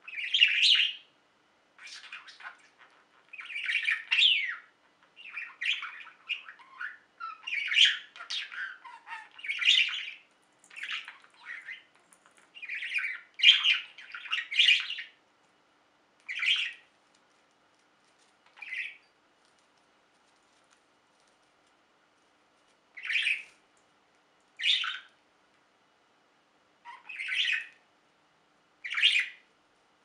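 Pet budgerigar chattering: a busy run of quick chirps and squawky warbles, thinning out about halfway through to single short chirps every second or two, with a pause of a few seconds between them.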